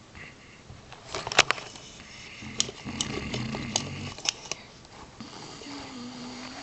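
Large sleeping dog snoring: a rough, low snoring breath about two and a half seconds in, then a steady pitched snore near the end. A cluster of sharp clicks comes about a second in, with more during the first snore.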